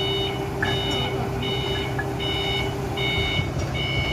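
Forklift backup alarm beeping at a steady pace, a little over once a second, with the engine running low underneath.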